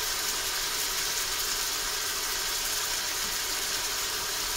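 Steady kitchen noise: an even hiss with a low mechanical hum, from food cooking in a pan and a kitchen appliance running, with no distinct knocks or clatters.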